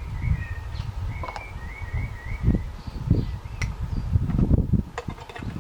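A low rumble, like wind or handling noise, with a few light clicks and knocks. A bird warbles in the background through the first half.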